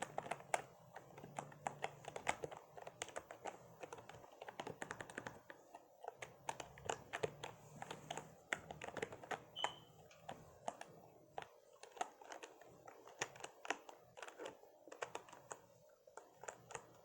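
Computer keyboard being typed on quickly, a dense run of irregular key clicks with brief pauses.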